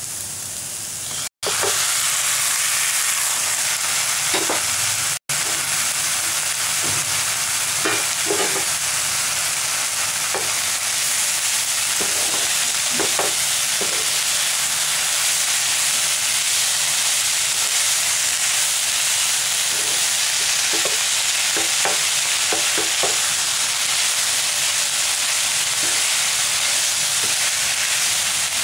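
Steady sizzle of onions, green chillies and flaked shark fish frying in a pan, with frequent scrapes and taps of the spatula as the mixture is stirred. The sound cuts out briefly twice in the first few seconds.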